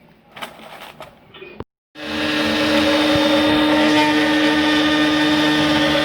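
CNC router's spindle motor running steadily, a loud, even whine with several steady tones over a noisy hum. It starts abruptly about two seconds in, after faint low sounds and a moment of dead silence.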